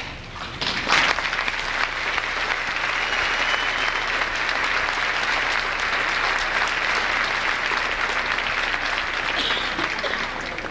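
Audience applauding, a dense steady clapping that swells up about a second in and tapers off near the end.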